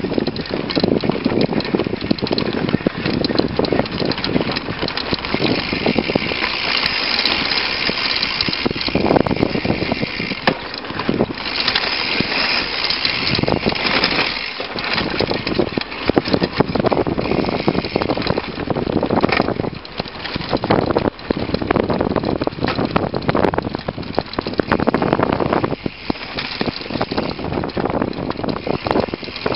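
Mountain bike rolling fast over a rough dirt and gravel trail: knobby tyre noise and constant rattling and jolting of the bike and its camera mount over bumps, with wind on the microphone.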